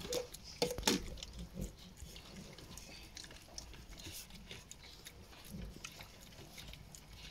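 Presa Canario puppies eating minced chicken from stainless-steel bowls: wet chewing and snuffling at the food, with a few sharp knocks in the first second.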